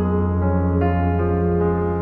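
Background keyboard music: a piano-like melody over a steady low drone, with a new note about every half second.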